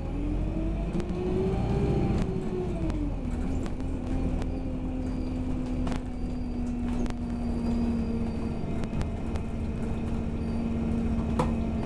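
Bus engine and drivetrain heard from inside the moving bus: a low rumble with a steady whine that rises and falls about two seconds in, then holds level, with sharp clicks now and then.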